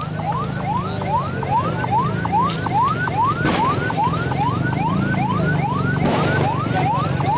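Electronic siren wailing in quick rising sweeps, about three a second, over a low steady rumble of street noise.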